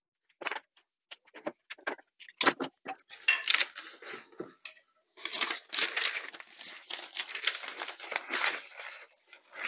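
A few sharp knocks of metal clamps being taken off and set down, then paper crackling and tearing as it is peeled off a glued-up board.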